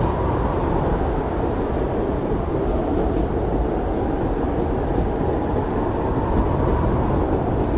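Blizzard wind blowing steadily, a dense low rumble whose upper edge rises and falls slowly as the gusts swell.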